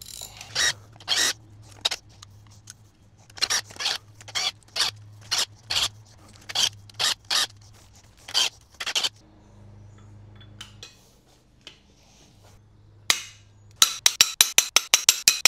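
Socket ratchet clicking as the E12 Torx bolts come out of an engine bedplate: a run of separate sharp clicks, a pause of a few seconds, then a fast run of clicks near the end as the handle swings back and forth.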